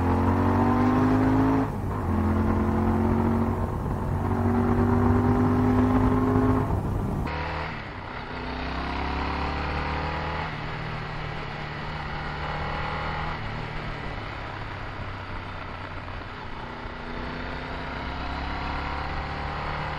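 Motorcycle engine accelerating through the gears: the pitch climbs and drops back at each upshift, three times in quick succession. After a sudden cut about seven seconds in, the engine runs quieter and steadier, with a few slower rises in pitch.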